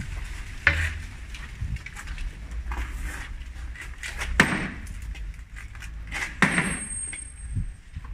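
A sledgehammer strikes a thick steel-reinforced concrete slab three times, each a heavy knock with a short ring. The concrete is so hard the hammer hardly dents it.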